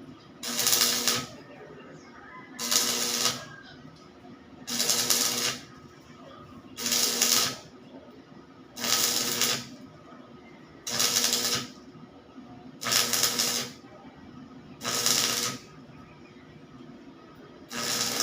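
Electric welding in short bursts, nine in all, about one every two seconds and each lasting under a second, over a steady low hum.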